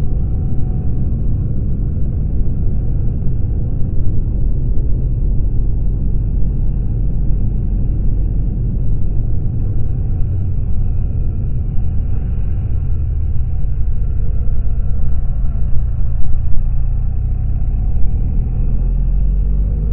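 BMW R1200GS motorcycle under way, its flat-twin engine running beneath a loud, steady low rumble of wind and road noise on the action-camera microphone.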